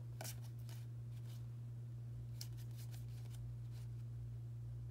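Stack of Pokémon trading cards being fanned and slid apart in the hands: soft, faint card flicks and rustles every half second or so, over a steady low hum.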